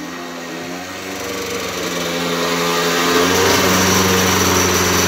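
Derbi Senda DRD moped's small two-stroke engine running as the bike rides in, growing louder as it comes closer and then holding steady for the last couple of seconds.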